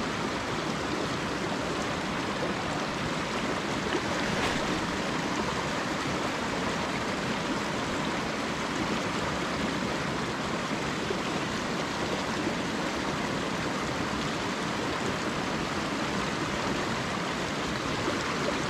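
A small creek running steadily.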